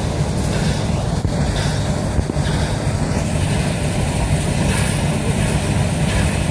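Steady rumble of a narrow-gauge train in motion.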